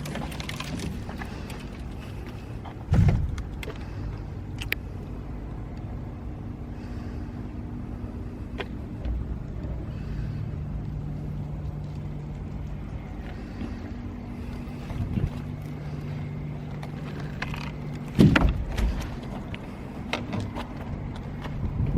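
An engine running steadily at a constant low speed, giving an even low hum. Two loud low buffets of wind on the microphone come about three seconds in and near the end.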